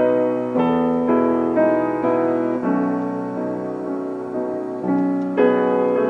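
Slow background piano music, notes and chords struck about once a second and left to ring and fade.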